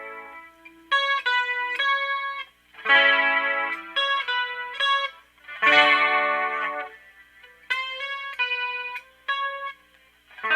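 Electric guitar played through an amp's wet channel with just chorus and reverb: strummed chords ringing out about 3 s and 6 s in and again at the end, each followed by a run of picked single notes.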